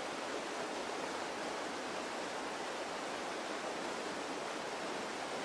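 A small, fast woodland creek rushing over rocks: a steady, even sound of running water.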